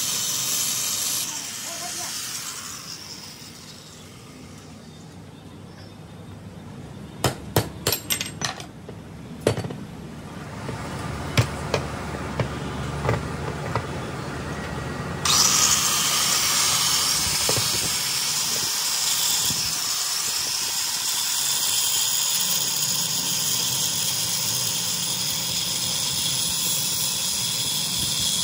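Makita angle grinder cutting steel on a truck drive-shaft universal-joint yoke, dying away after the first second or two. In the lull comes a run of sharp metal knocks and clinks, then the grinder bites into the steel again about halfway through and keeps cutting.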